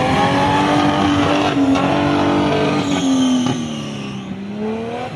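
Off-road racing buggy's engine revving hard under acceleration: its pitch climbs, holds high, drops about three and a half seconds in as the revs come off, then rises again briefly near the end as the sound grows fainter.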